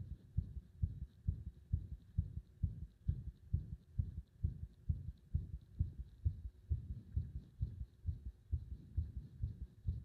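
A person's heartbeat recorded close to the body: a steady run of dull low thumps, often in lub-dub pairs, about three beats every two seconds.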